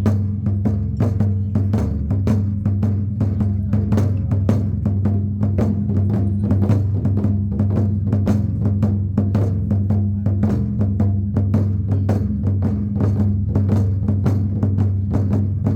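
Taiko drumming: rapid, steady strikes over a low, sustained drum ringing.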